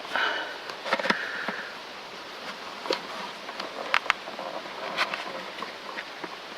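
Hand handling noises: scattered sharp clicks and a couple of short rustling scrapes, with no engine running.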